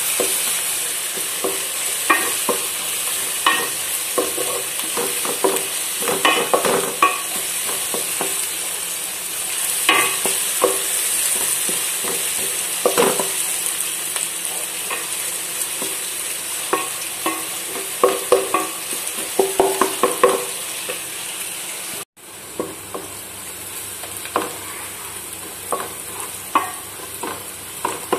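Chopped onions frying with a steady sizzle in a metal pot, while a wooden spoon stirs them and scrapes and knocks against the pot in irregular clicks. About three-quarters of the way through the sound drops abruptly and then goes on quieter.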